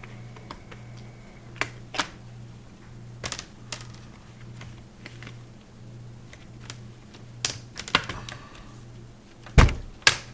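Plastic laptop screen bezel being pried off by hand, its snap clips unhooking in irregular sharp clicks and snaps, with a heavier knock near the end. A steady low hum runs underneath.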